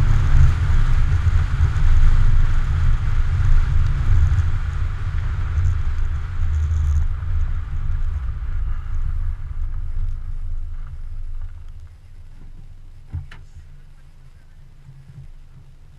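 Heavy low rumble of a car driving over snow-covered ice, heard from a camera mounted on the outside of the car, with wind on the microphone; it fades as the car slows and drops off about twelve seconds in as it comes to a stop. One sharp click follows about a second later as the driver's door opens.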